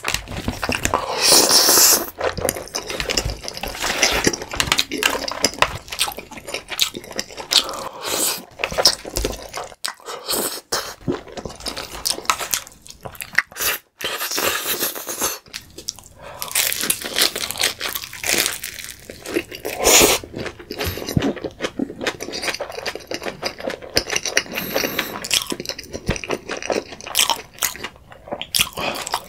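Close-miked eating sounds: slurping and chewing creamy pasta, a plastic fork scraping the takeout tray, and, near the end, bites into crispy thin-crust pizza and chewing.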